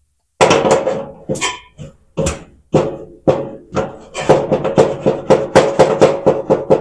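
Quick, irregular metallic knocking with a ringing tone, getting faster in the second half, as a dryer's front drum bearing is worked free after cleaning.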